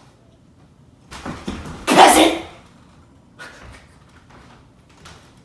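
A man shouts a single harsh word, the loudest thing here, about two seconds in, with a softer vocal lead-up just before it. Faint scattered knocks and rustles follow.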